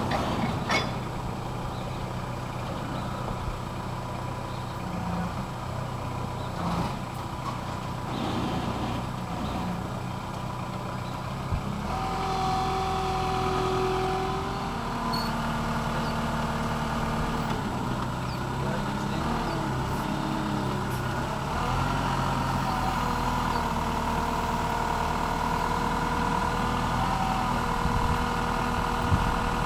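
Engine of a small truck-mounted forklift running as it unloads lumber from a flatbed delivery truck. The engine gets louder about twelve seconds in, and its pitch rises and falls as the machine works.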